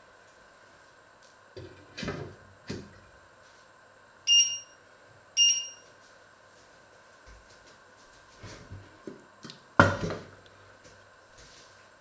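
A metal pot lid clatters onto a pot, then two short electronic beeps a second apart from a glass-ceramic cooktop's touch controls as the heat is set. Near the end a steel pot knocks down onto the wooden counter.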